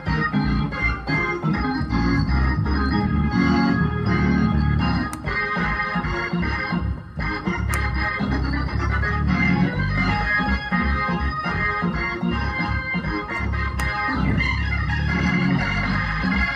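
Upright piano playing a gospel arrangement: full sustained chords over a strong bass line, steady throughout.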